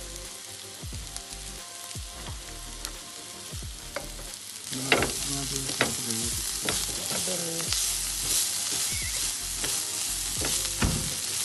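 Boiled potatoes and peas sizzling in oil in a nonstick frying pan while a spatula stirs and breaks them up, with occasional sharp taps and scrapes of the spatula on the pan. The sizzle grows louder about halfway through.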